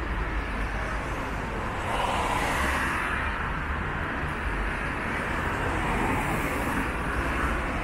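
Street traffic: a steady rumble of road vehicles, swelling as vehicles pass about two seconds in and again about six seconds in.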